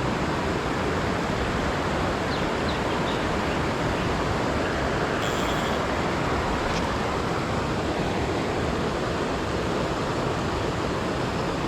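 Steady rushing of a mountain river, water pouring over falls and through rapids.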